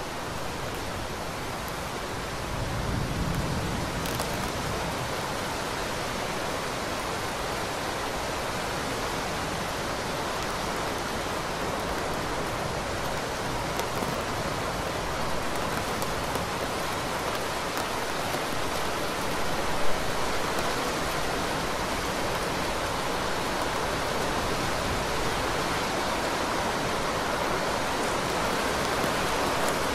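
Heavy rain pouring steadily, a dense even hiss. A brief low rumble swells about three seconds in, and one sharp tap stands out about two-thirds of the way through.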